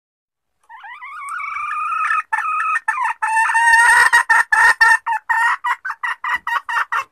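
Junglefowl hen calling: a drawn-out note that starts about a second in and grows louder, then a run of short clipped notes that quicken to about five a second. It is the hen's call for a mate, used as a lure call for catching wild junglefowl.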